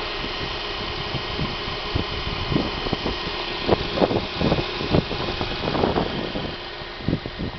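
Subaru Impreza's flat-four boxer engine idling steadily, heard with the bonnet open, with scattered irregular thumps over the running sound.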